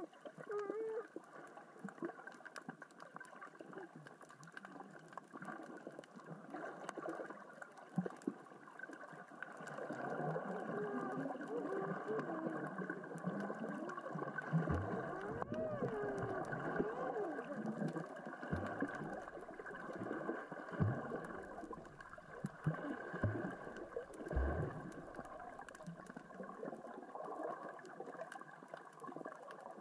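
Underwater sound over a rocky reef: a steady crackling clatter of small rocks rolled across the sea floor by the current and tide. Some wavering tones come through in the middle, and there are three low thuds in the second half.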